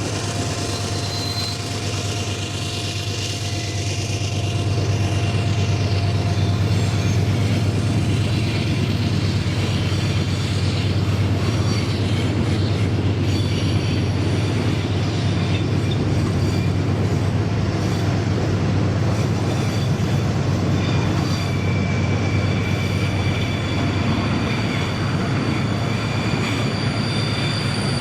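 Freight train rolling past: a steady low rumble and rolling noise of the wagons on the rails, louder after the first few seconds, with thin, high wheel squeals in the later part.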